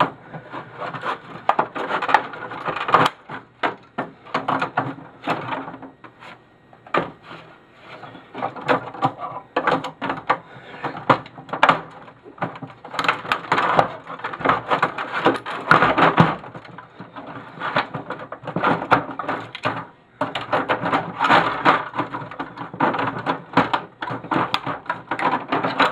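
Printer plastic being pried, cracked and snapped with hand tools: a long run of irregular clicks, cracks and clattering, with louder flurries every few seconds.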